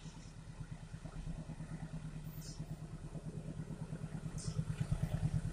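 Diesel locomotive's engine heard approaching: a steady low throbbing rumble that grows gradually louder.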